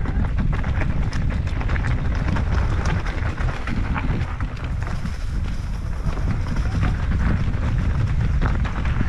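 Wind buffeting the microphone of a mountain bike ride camera, a constant low rumble, with frequent short clicks and rattles of the bike riding over a rough trail.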